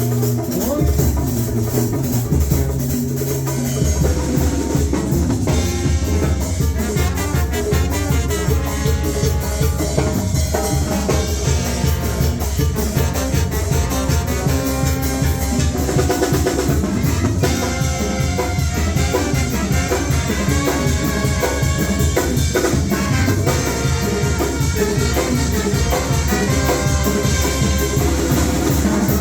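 Loud music with drums and percussion and a steady beat, in a salsa-like style.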